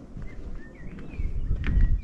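A small bird gives a few short chirping calls over a low rumble of wind on the microphone, which swells near the end.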